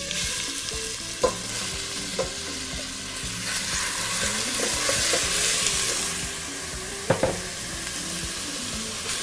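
Chopped onion, carrot and celery dropped into hot olive oil in a stainless steel pot, sizzling at once as the soffritto starts to fry. A wooden spoon stirs it, knocking against the pot a few times.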